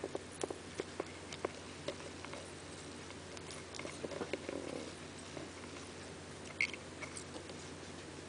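Six-spotted ground beetle chewing and tugging at a grasshopper: faint, irregular clicks and crackles, bunched at the start and around the middle, with one sharper click late on, over a low steady hum.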